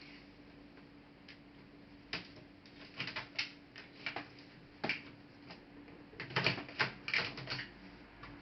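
Irregular sharp clicks and taps of Toshiba Satellite A300 laptop parts being handled during disassembly, thickening into a quick run of clicks about two-thirds of the way in, over a faint steady hum.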